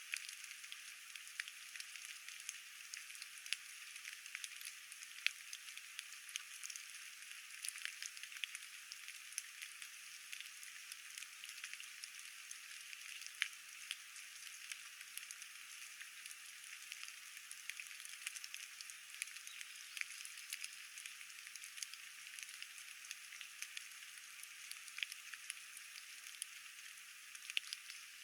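Steady rain falling, a constant hiss broken by many irregular raindrop taps.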